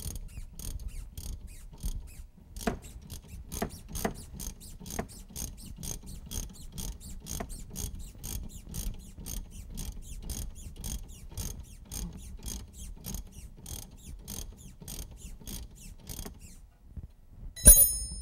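Ratchet wrench clicking steadily, about three clicks a second, as it backs the lower nut off a sway bar end link. The clicking stops near the end and is followed by one loud, ringing metallic clink.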